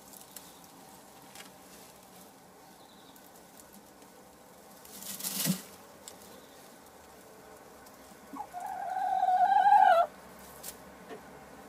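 Light Sussex hen on the nest while laying an egg, giving one long, drawn-out call that grows louder and cuts off abruptly near the end. About five seconds in there is a short rustling swell.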